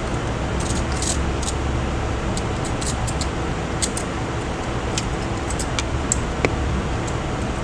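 Steady machine hum like a fan, with many small scattered clicks and ticks of handling on the repair bench.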